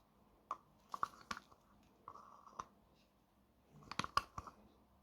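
Faint, scattered clicks and taps of small hard pieces being handled and set into a resin mold, with a quick cluster of clicks near the end.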